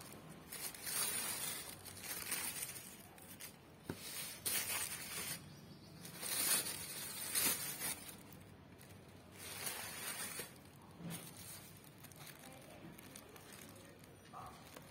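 Tissue paper rustling and crinkling in repeated bursts as it is pulled open inside a cardboard shoebox; the handling quietens in the last few seconds.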